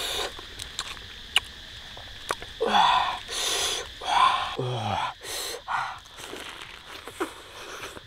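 Crisp lettuce leaves rustling and crunching in short bursts as they are handled and bitten, with a brief falling vocal hum about halfway through. A faint steady insect drone runs underneath.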